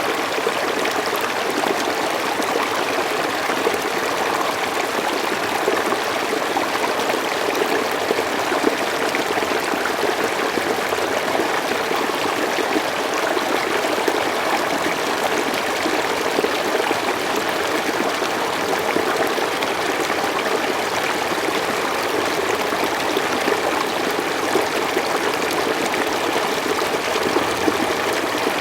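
Slow forest stream running, a steady even rush of flowing water with no change in level.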